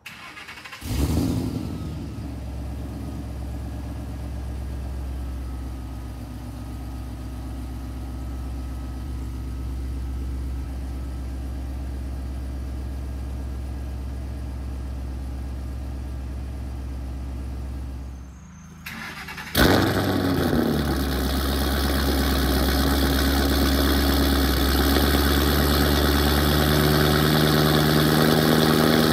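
Ford Mustang Bullitt's 4.6-litre three-valve V8, breathing through long-tube headers, an off-road H-pipe and an axle-back exhaust, started twice. It flares on start-up about a second in and settles to a steady idle. After a short break a second start comes near twenty seconds in, with a louder idle, the sound of a second, freer-flowing set of mufflers.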